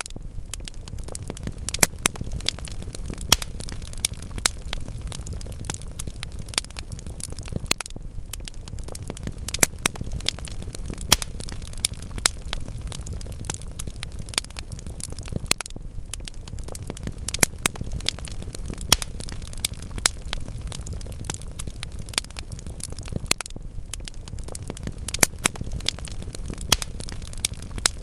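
Wood fire burning in a fireplace: a steady low rumble with irregular crackles and sharper pops from the burning logs.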